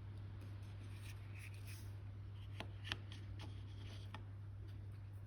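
Faint rustling and a few light clicks from small model-kit parts being handled and fitted, with a steady low hum underneath.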